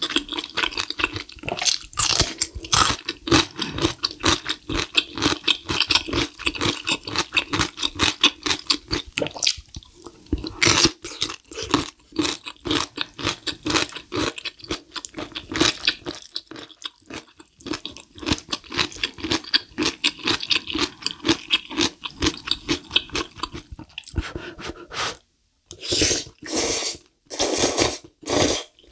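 Close-up eating sounds: rapid wet chewing with frequent crunches, as of fried cream shrimp and kimchi. Near the end come three or four short slurps of black bean noodles.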